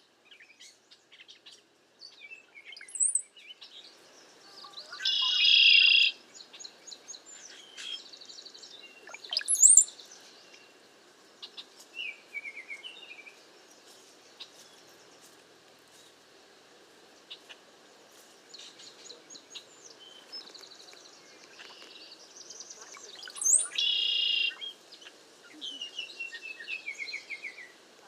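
Cowbirds calling: scattered chirps, two harsh buzzy calls about a second long, thin high whistles that sweep upward, and short descending chatters.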